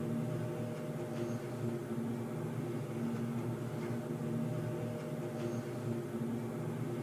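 Underground ambience: a steady low hum made of several held tones over faint hiss, with a faint short high ping twice.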